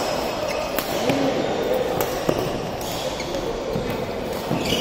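Badminton rally: rackets striking the shuttlecock in sharp hits about a second and a half apart.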